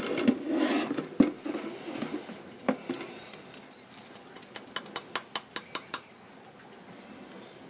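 Hands handling cork bark and decor pieces in a glass terrarium: rustling and scraping with a few knocks, then a quick run of small sharp clicks about five seconds in.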